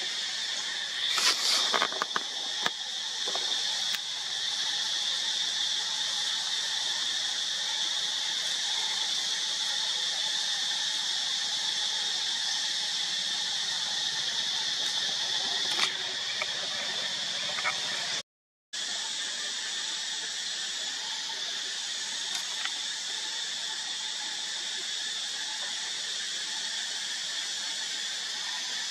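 Steady high-pitched drone of insects, with a brief cluster of sharp squeaks about a second in. The sound drops out for a moment about two-thirds of the way through.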